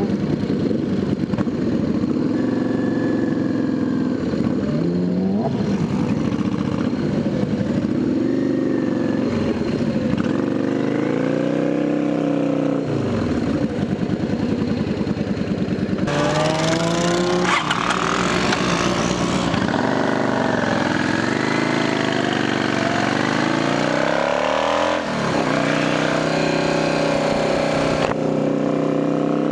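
Motorcycle engine pulling through the gears while riding, its pitch climbing and dropping back at each shift. A stretch of louder rushing noise comes in midway.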